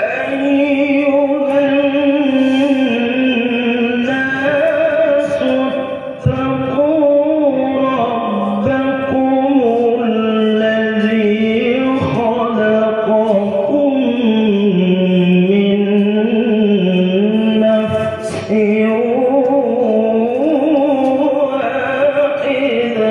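A man's voice reciting the Qur'an in melodic tilawah style into a handheld microphone. The notes are long, held and ornamented, wavering and gliding in pitch. The voice breaks off briefly for breath about six seconds in and again about eighteen seconds in.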